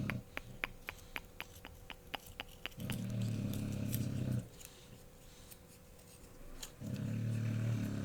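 Puppy snoring: low, rumbling snores about every four seconds, each lasting about a second and a half. After the first snore comes a run of quick faint clicks.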